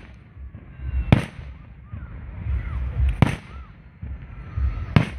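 Aerial firework shells bursting: three sharp booms about two seconds apart, over a low rumble of the show.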